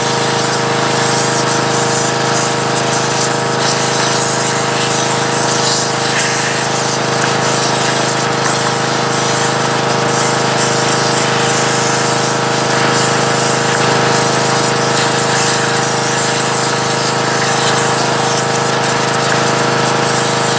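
Small homemade pressure washer running steadily, its pump motor droning with a hiss of high-pressure water spraying onto black walnuts to wash off the black gunk.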